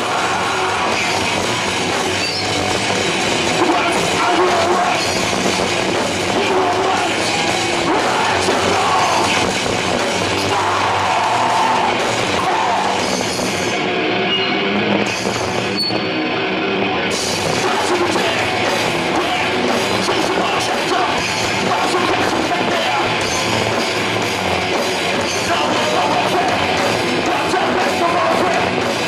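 Live rock band playing loud: electric guitars, bass and a drum kit, with a male vocalist singing into a microphone.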